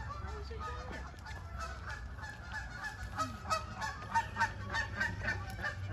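Birds calling in a fast run of short honks, several a second, starting about a second and a half in, over a steady low rumble.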